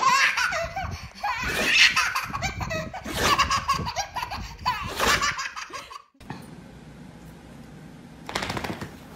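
Baby giggling and belly-laughing in repeated bursts, which stop abruptly about six seconds in, leaving quiet room noise.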